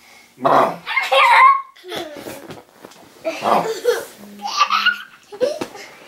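A man and small children laughing in several short bursts, some high-pitched giggles and some deeper laughter.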